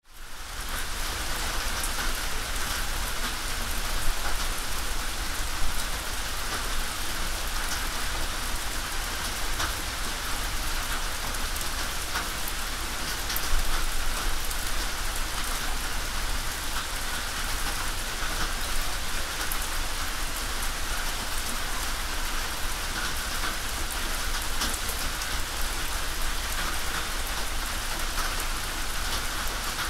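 Steady rain falling on a tin roof: a dense patter of drops with occasional louder single drips. The sound fades in at the very start.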